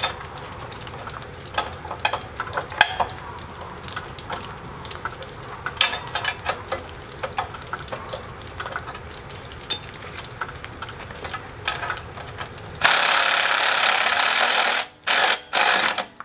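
Ratchet wrench clicking in short irregular runs as the bolts holding the tractor's brush guard to the subframe are loosened. Near the end a cordless impact driver runs for about two seconds, then in a few short bursts, backing a bolt out.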